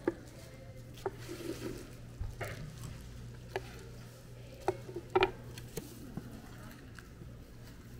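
Kitchen knife knocking on a wooden cutting board as boiled pig offal is chopped and scraped up, in a few sharp, irregular knocks with a quick double knock about five seconds in. A steady low hum runs underneath.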